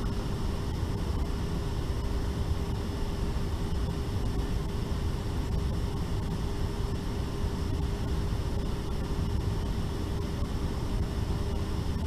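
Steady rush of cabin ventilation inside a Boeing 777-300ER before its engines are started, with a steady hum under it.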